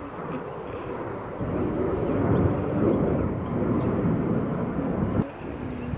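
Jet airliner engines during the takeoff climb: a steady, even rumble that grows louder about a second and a half in and holds.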